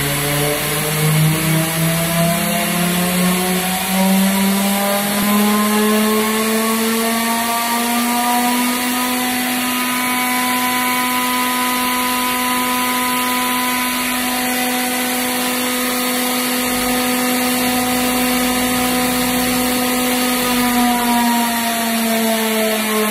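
Inverter-driven screw air compressor running loaded: a steady motor whine with noise. Its pitch climbs over the first nine seconds or so as the drive speeds up, holds steady, then drops a little near the end as the drive frequency falls.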